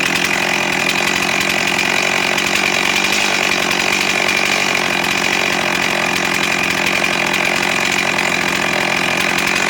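Stihl MS360 Pro chainsaw's two-stroke engine idling steadily, with no revving.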